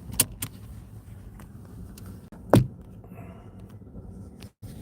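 Handling noise from a phone on its gimbal: a couple of light clicks, then one sharp knock about two and a half seconds in, over a low steady rumble.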